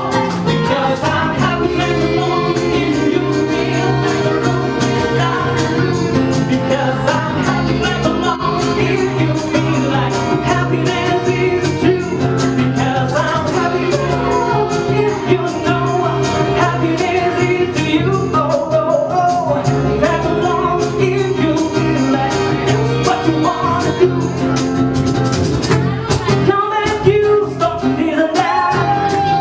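Live band playing a song: a man and a woman singing into microphones over acoustic guitar and cajón, with a steady beat.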